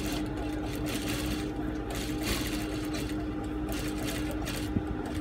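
JUKI sewing machine stitching in short runs that start and stop, over a steady hum. There is a single sharp click near the end.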